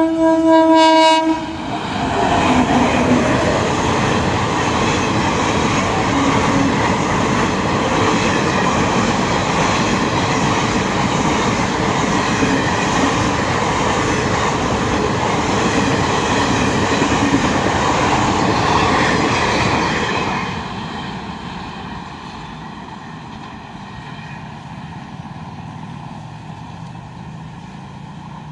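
Train horn blown briefly at the start, the loudest sound, then a passenger train rushing past close by at speed for about twenty seconds. About twenty seconds in, the rush drops to a quieter rumble as the train moves away.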